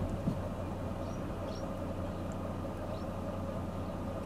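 A vehicle engine idling steadily, a low even hum. A few faint high chirps come through about a second in and again near three seconds.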